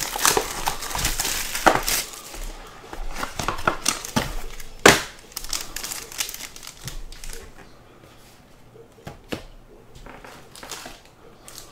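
Plastic and foil wrapping of a 2022 Topps Five Star trading-card pack crinkling and crackling as it is unwrapped by hand. There are dense sharp crackles with one loudest snap about five seconds in, then quieter, sparser handling.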